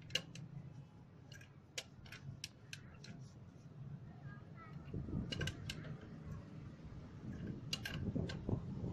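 Irregular sharp mechanical clicks and ticks over a low steady hum, the hum getting louder about halfway through.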